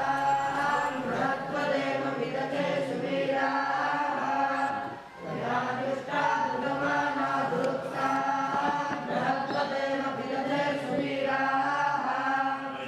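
A group of Vedic students chanting mantras together in a steady sustained recitation, breaking off briefly about five seconds in before resuming.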